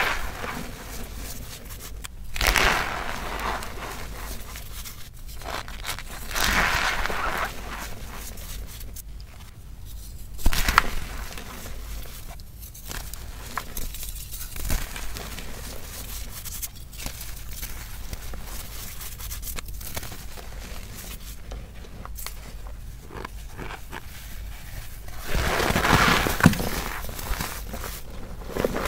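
Cornstarch and reformed gym chalk powder being squeezed and crumbled by hand, a soft crunching, squeaky crush with several louder bouts of squeezing.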